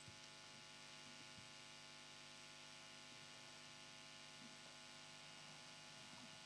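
Near silence: a faint, steady electrical hum, mains hum in the room tone or sound system.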